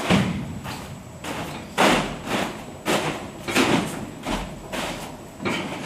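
A series of scuffs and thumps, about two a second, from the liner being handled and shifted into place inside the steel shipping container.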